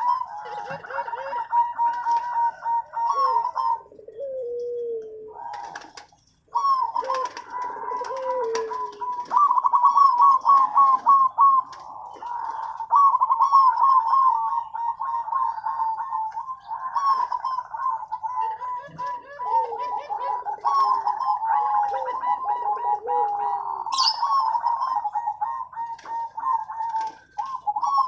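Zebra doves (perkutut) cooing continuously: fast runs of short, clipped notes at a fairly steady pitch overlap one another, broken now and then by lower, falling coos. The song briefly drops out about six seconds in.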